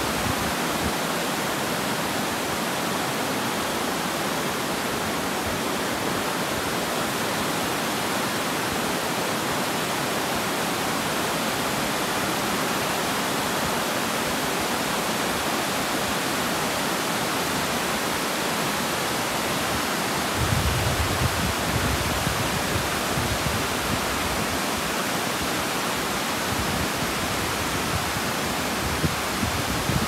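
Steady rush of water cascading over a low weir into the pool below, an even hiss with no pauses. A low rumble comes and goes beneath it in the last third.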